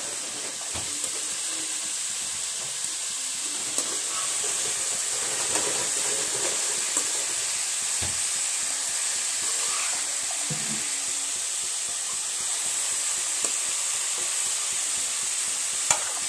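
Chopped mixed vegetables sizzling as they fry in mustard oil in a steel kadhai, stirred with a metal spatula that scrapes and clicks against the pan now and then. The vegetables are being fried until they soften.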